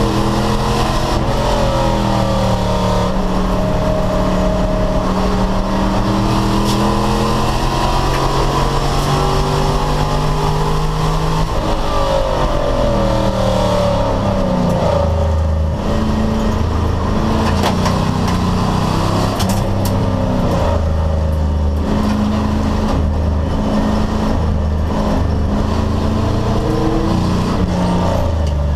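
Race car engine running hard, its revs climbing and falling repeatedly through gear changes, with a deep drop and climb back up about halfway through.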